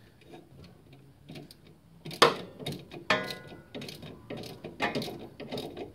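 Socket ratchet clicking in short spurts while tightening nylock nuts, with a sharp metallic knock about two seconds in.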